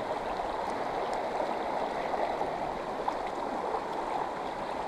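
River water rushing steadily over a shallow, rocky riffle, an even flowing hiss.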